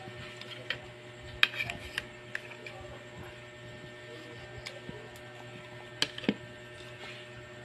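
A spoon clicking and scraping against a plastic plate as a toddler eats: a cluster of sharp clicks about a second and a half in and two more around six seconds, over a steady electrical hum.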